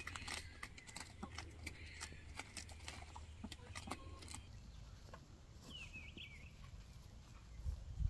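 Chickens pecking at fruit on the ground, a faint run of quick sharp taps and clicks that stops about four seconds in. A short high chirping call follows about six seconds in, and a cow starts mooing at the very end.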